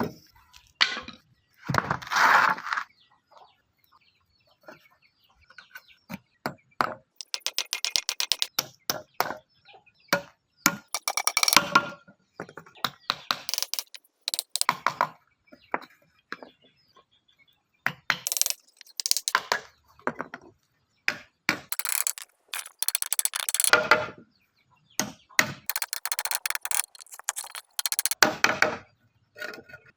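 Woodworking on a wooden rake: irregular knocks and cracks of wood, with short noisy bursts of tool work and, a few seconds in, a quick even run of ticks.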